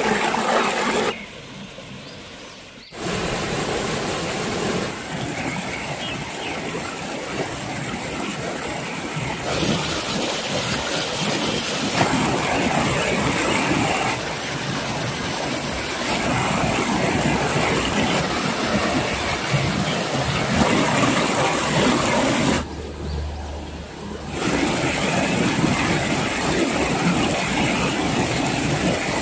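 Small rocky stream rushing and splashing over boulders: a steady loud wash of water that changes abruptly several times as the shots change.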